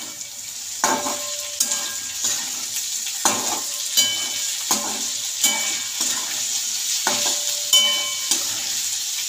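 Metal spatula scraping and clinking against a pan in strokes about every three-quarters of a second, each stroke ringing briefly. Underneath runs the steady sizzle of okra, tomato and garlic frying in hot oil.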